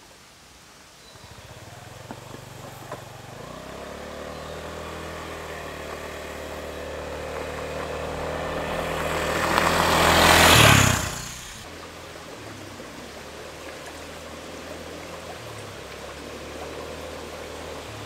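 Honda Zoomer scooter's single-cylinder four-stroke engine approaching and growing steadily louder, passing close with a burst of tyre noise on gravel about ten seconds in, then dropping away suddenly. A quieter, steady engine sound follows.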